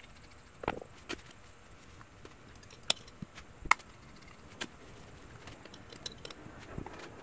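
Scattered light clicks and knocks of metal parts being handled: valves being pressed and checked in a freshly assembled Subaru EJ25 aluminium cylinder head, with a small tool tapping at a valve. The sharpest click comes about halfway through.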